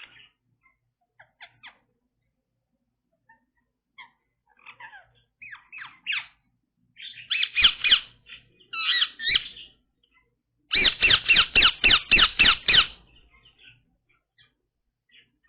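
Indian ringneck parakeet calling: scattered soft chirps at first, louder squawking calls about halfway through, then near the end a fast run of about ten loud calls over two seconds.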